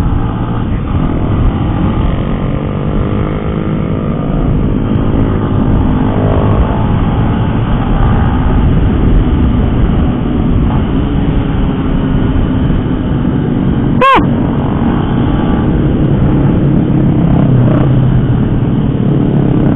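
Motorcycle ridden on the road: the Yamaha MX's engine running under way, buried in loud wind rush on the rider's microphone, its note rising and falling now and then. About fourteen seconds in, the sound breaks off for a moment.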